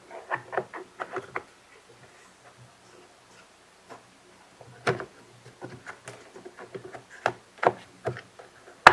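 Light clicks and taps of plastic parts being handled as a leaf blower's throttle trigger and housing are fitted together. There is a quick run of small clicks in the first second or so, then scattered taps, with one sharp click near the end.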